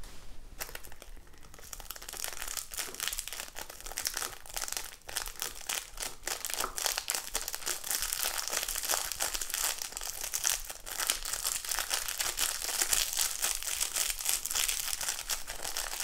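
Small plastic sachet of silver glitter crinkling as it is squeezed and shaken to empty the glitter into a plastic cup: a dense, continuous run of fine crackles.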